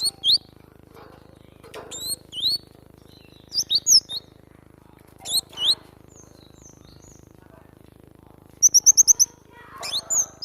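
Glatik batu (cinereous tit) singing: short, sharp, high chirps that slide in pitch, given in twos and threes with pauses between, and a quick run of about six notes near the end.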